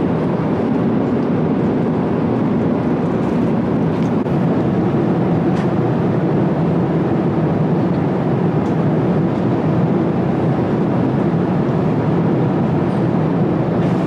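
Airliner cabin noise in cruise flight: the steady, even roar of the jet engines and airflow heard from a passenger seat.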